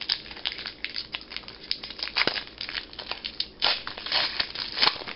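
Foil trading-card pack wrapper crinkling and cards being handled: a continuous run of irregular rustling crackles, with a couple of sharper crackles near the end.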